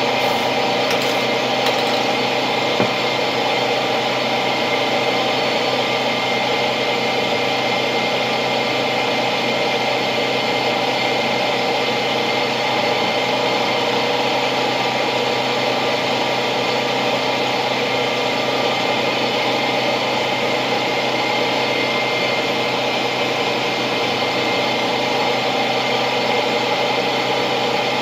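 A steady mechanical hum, like a small motor running, made of many fixed tones with no change in pitch or level.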